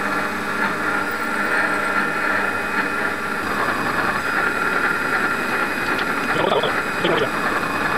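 Bernardo Profi 400 V metal lathe running with its spindle turning while a twist drill in the tailstock chuck bores into the spinning metal workpiece. The machine whine and hum are steady. The low hum changes about three and a half seconds in, and two short louder scraping bursts come near the end.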